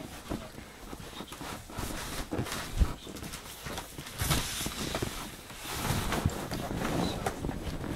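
Large cardboard shipping box being handled and opened: flaps flexing and scraping, rustling, and irregular knocks and thumps, the loudest a sharp thump about three seconds in.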